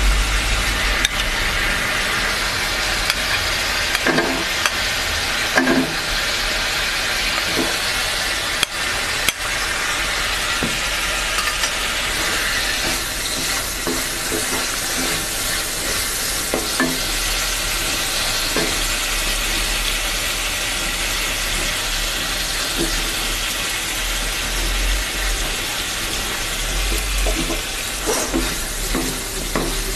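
Potato cubes frying in a hot spice paste in a metal pan, with a steady sizzle, stirred with a wooden spatula that scrapes the pan now and then.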